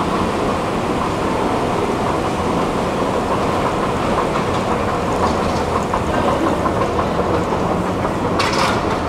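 Escalator running while carrying a rider upward: a steady mechanical rumble and clatter of the moving steps and drive. About eight seconds in, as it reaches the top landing, there is a short burst of sharp clicks.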